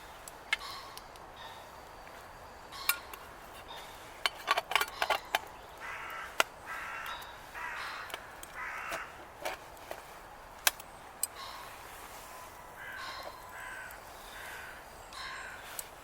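Crow cawing in two bouts of several short calls, amid scattered sharp clicks and knocks, most of them a few seconds in.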